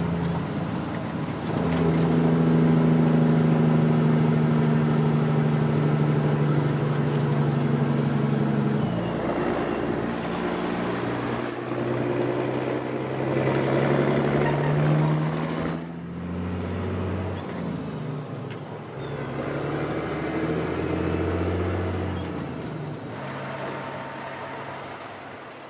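Semi truck's diesel engine running on the road, a steady drone that jumps to a new pitch several times.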